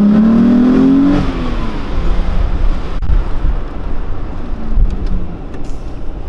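Golf 4 Cabriolet's swapped-in 2.8-litre VR6 engine under acceleration, its revs climbing for about a second, then falling away to a low rumble with road noise, heard from inside the cabin.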